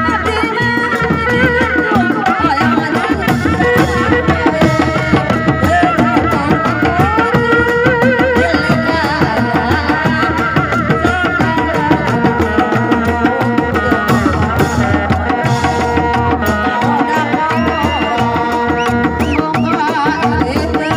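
Loud live Sundanese traditional music: hand drums beating a busy rhythm under a wavering pitched melody line.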